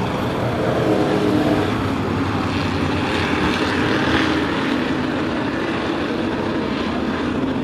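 A pack of sport-class race trucks running laps on a short oval, several engines at speed blending into one steady, loud sound of overlapping pitches.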